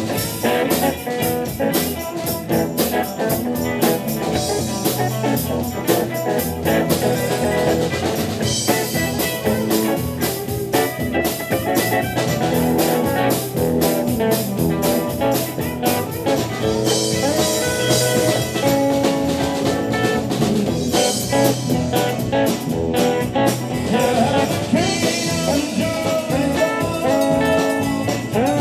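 Live rock and roll band playing: electric guitars over electric bass and a drum kit, with a steady beat.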